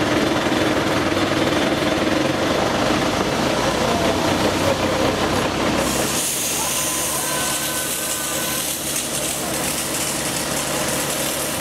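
A fire truck's engine and pump running with a dense rattle; about six seconds in, a steady high hiss comes in as the hose nozzle opens and water sprays out.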